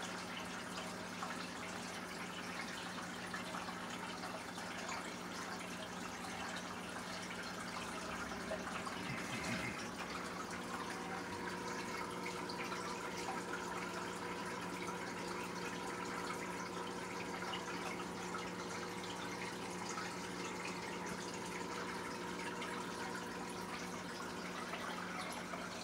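Aquarium filter and air bubbler running: a steady trickle and bubbling of water over a low steady electric hum. A faint higher tone joins about eleven seconds in.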